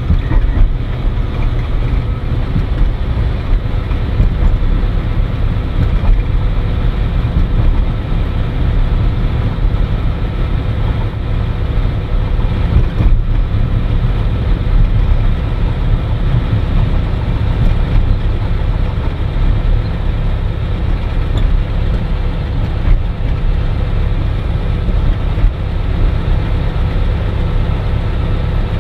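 Cirrus SR20's piston engine and propeller running steadily, heard from inside the cabin.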